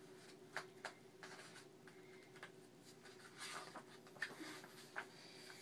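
Faint rustling of a picture book's paper pages being handled and turned, with a few light clicks.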